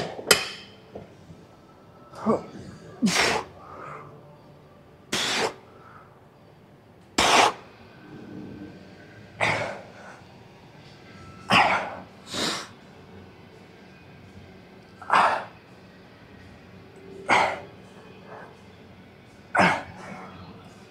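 A person's sharp, forceful exhalations, about eleven short bursts roughly two seconds apart, keeping time with reps of a weightlifting set.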